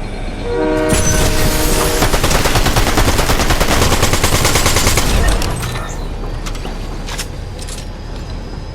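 A train horn sounds a chord of several tones for about a second and a half. Meanwhile a train passes close by, loud, with rapid wheel clatter that drops away about five seconds in.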